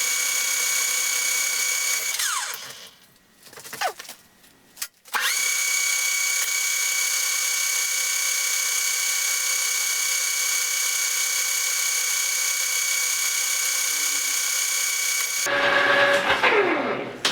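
Metal lathe turning a wood-chipper shaft under power feed, with a steady whine. About two seconds in the whine winds down and nearly stops, then it spins back up about five seconds in and runs steadily again. Near the end a louder, rougher noise takes over.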